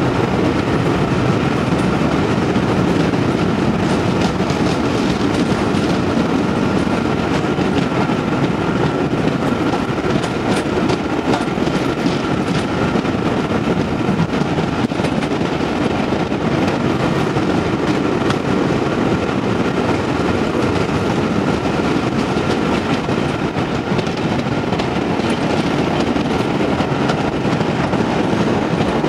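A train running steadily on the track, with a continuous rumble of wheels and a cluster of clicks about ten seconds in.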